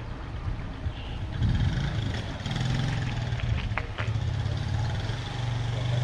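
A motor vehicle engine running with a steady low hum, coming in about a second and a half in, over a low background rumble.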